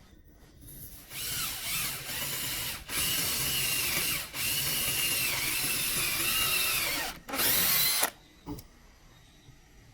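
An electric power tool running in several trigger pulls. Its whine dips in pitch under load, it stops about seven seconds in, and one last short burst follows, then a click.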